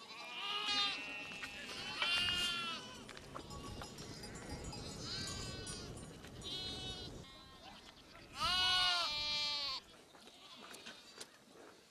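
A mixed flock of sheep and goats bleating, several separate calls one after another, with the loudest about eight to nine seconds in. A rough rustling noise runs under the calls in the middle.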